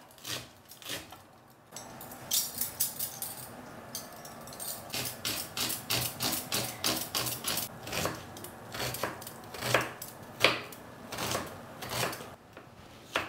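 Kitchen knife chopping onions finely on a cutting board: a steady run of sharp chops, a few a second, starting about two seconds in.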